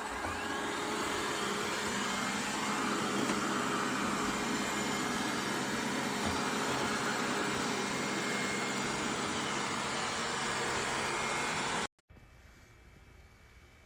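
Steady machine hum with a few constant low tones, cutting off suddenly about twelve seconds in and leaving faint room tone.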